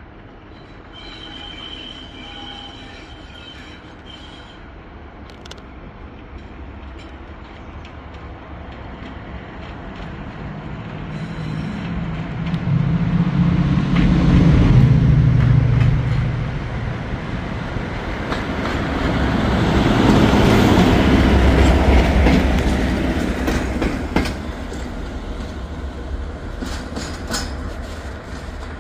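Class 37 diesel locomotive's English Electric V12 engine working as it hauls the train, together with the carriage wheels running on the rails, heard through an open carriage window. The engine noise swells loudly twice, first about halfway through and again a few seconds later, with clicks over rail joints near the end.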